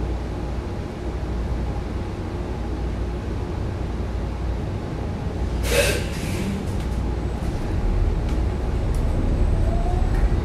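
Inside a New Flyer XDE40 hybrid bus under way: a steady low rumble of the drivetrain and road, with a short loud hissing burst about six seconds in. Near the end a rising whine sets in, typical of the BAE HybriDrive electric traction motor as the bus picks up speed.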